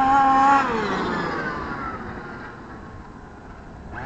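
Large-scale RC cars running fast on asphalt: a steady high motor tone that drops in pitch and fades about half a second in as the cars slow down.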